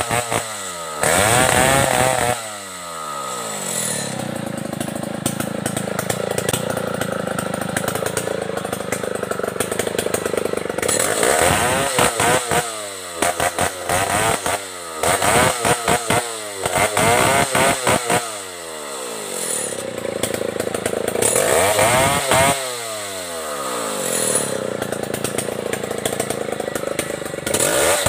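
Stihl 070 large two-stroke chainsaw cutting through a felled log. It runs at a steady, loaded pitch during the long cuts, and between cuts the throttle is revved up and let back down several times in quick succession, mostly around the middle and near the end.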